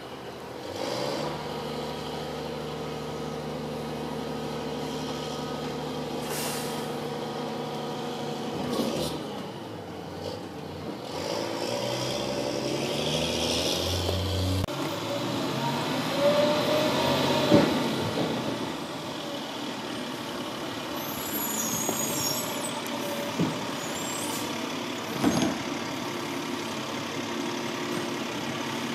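Freightliner Condor garbage truck with a Labrie Expert 2000 side-loader body running at idle, its engine speeding up a little before halfway as the hydraulics work. Later comes a loud hiss of air with a sharp clank, then a few single knocks of the body and bins.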